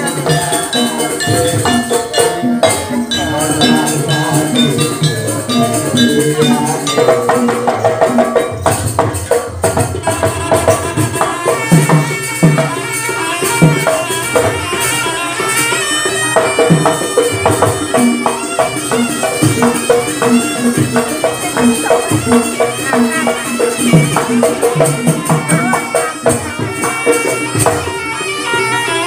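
Live jaranan gamelan music: a kendang drum, hanging gongs and keyed bronze metallophones playing continuously in an even rhythm.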